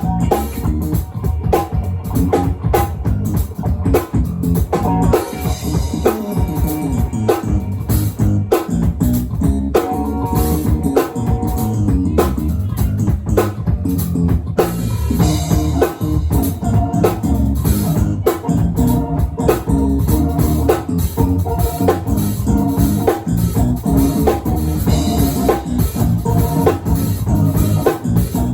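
A live band playing an instrumental jazz-funk tune: drum kit keeping a steady beat under sustained keyboard chords and electric guitar.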